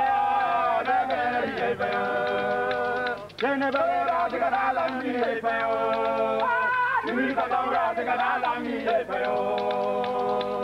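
Several men singing long, held notes together, breaking off briefly twice, while beaded gourd rattles are shaken in rhythm.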